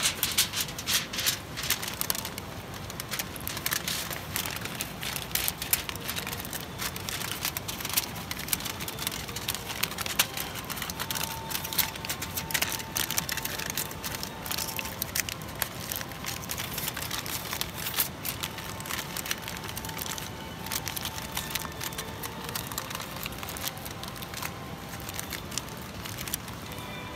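Wood campfire crackling, with irregular sharp pops and snaps throughout.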